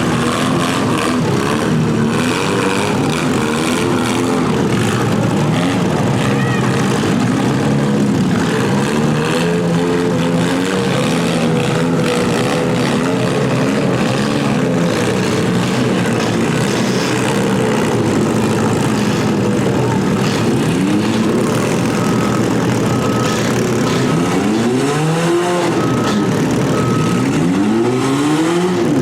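Several compact cars' engines revving up and dropping back again and again, overlapping, as the cars run in a demolition derby heat. In the last few seconds a high steady tone sounds on and off.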